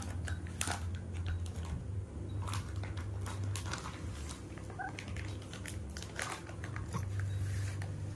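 Baby macaques squeaking briefly a few times, with soft clicking and smacking as one mouths and sucks on a plush toy, over a steady low hum.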